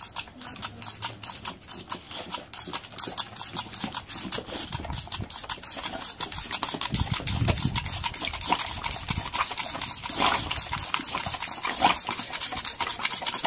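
A boxer dog snapping and gulping at a jet of water from a squirt toy, making fast, wet chomping and splattering sounds several times a second.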